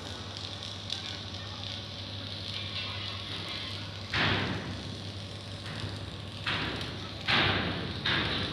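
Construction site ambience: a steady low machinery hum under a noisy background, broken by sudden short noisy bursts, one about halfway through and three more close together near the end.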